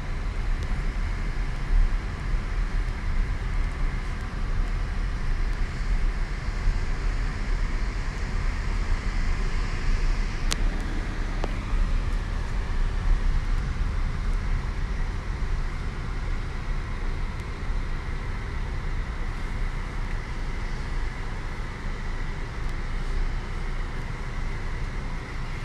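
Steady engine and road rumble of a car driving, heard from inside the cabin, with a single sharp click about ten seconds in.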